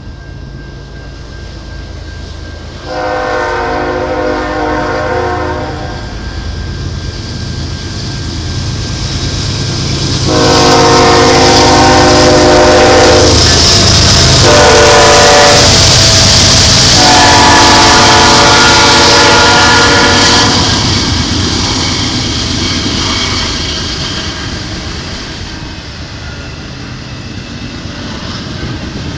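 Norfolk Southern GE ES44AC diesel locomotive's air horn sounding the grade-crossing signal, long, long, short, long, over the diesel engine running as it leads an intermodal train past. The loudest stretch comes as the locomotive goes by, and then the trailer-carrying flatcars roll past with wheels clicking over the rail joints.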